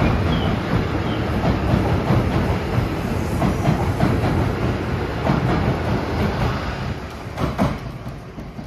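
E6 series Shinkansen train pulling out of the station at low speed past the platform: steady running noise with irregular wheel clicks over the rails. The sound fades away over the last couple of seconds as the train leaves.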